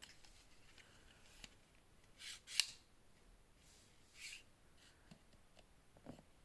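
Watch packaging being handled: a few short scrapes and rustles with a sharp click midway, the click being the loudest sound.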